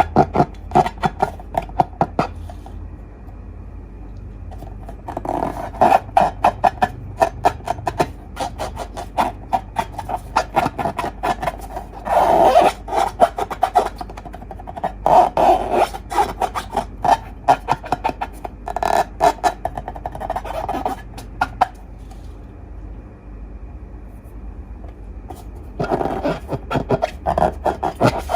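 Slime being squeezed and worked by hand, giving rapid sticky clicks and crackles in bursts, with a few quieter pauses between them.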